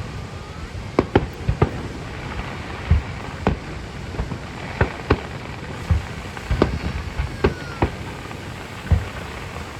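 Aerial fireworks going off: an irregular run of sharp bangs mixed with deeper booms every few seconds, with a faint whistling glide now and then.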